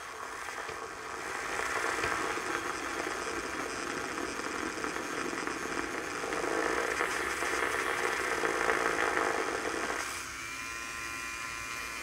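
Rechargeable handheld milk frother with a double-coil whisk running in a mug of coffee, a motor whir with liquid churning that swells and eases as it whips up a foam top. About ten seconds in the whisk comes out of the coffee and the motor runs free with a steadier, thinner whine.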